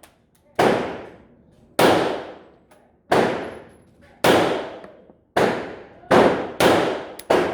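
Pistol fired shot after shot, eight rounds with each report ringing out, about one a second and coming faster near the end.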